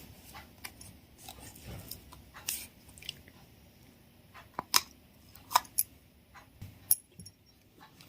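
Crystal slime being squeezed and played with by hand, giving scattered sharp clicks and pops, a few louder ones in the middle.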